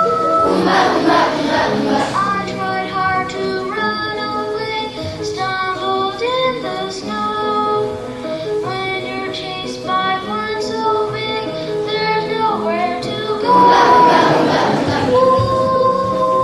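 Children singing a song over musical accompaniment, with held notes changing about once a second.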